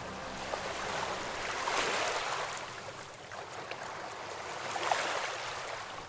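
River water flowing, a steady rushing sound that swells and eases slowly in loudness.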